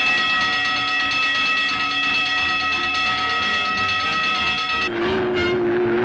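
A steady, shrill whistle-like tone sounding several pitches at once, held for about five seconds before cutting off. Orchestral score comes back in near the end.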